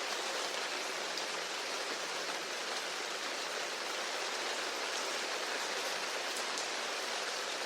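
Steady, gentle rainfall: an even hiss of rain with no single drops standing out.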